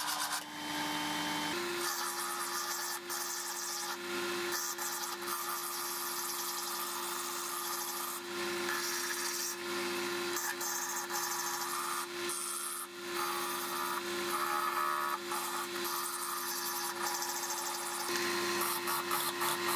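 A file rasping against a spinning oak handle on a running Sieg C3 mini metal lathe, a scratchy wood-filing noise over the lathe's steady hum. The scraping comes in quick, even pulses near the start and again near the end.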